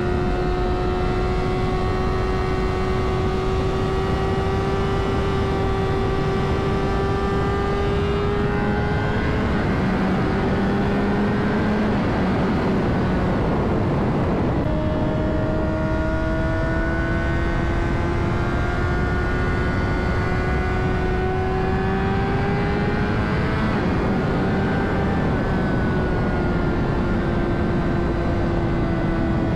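Honda CBR600RR's inline-four engine running steadily under way, its note climbing slowly as the bike gains speed, with wind rush underneath. Around the middle the engine note drops away into noise for a few seconds, then comes back lower and climbs again.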